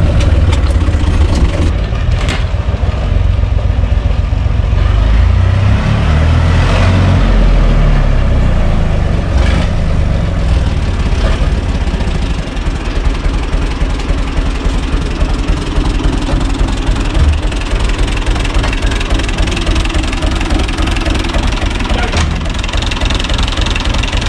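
UTB 445 tractor's diesel engine idling, louder and heavier for the first eight seconds or so, then settling to a steady run, with a few short knocks over it.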